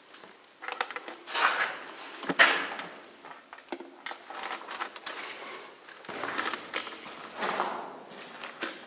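Footsteps scuffing and crunching on a gritty concrete floor, irregular steps with small knocks and clicks.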